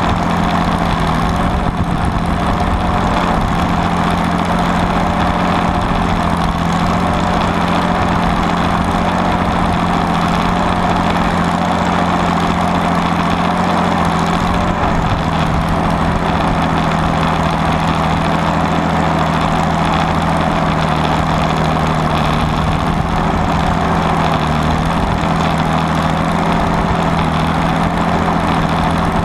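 Allis-Chalmers WD45 diesel tractor's six-cylinder engine running steadily under load, pulling a rollover plow through the ground. Its pitch drops slightly about halfway through.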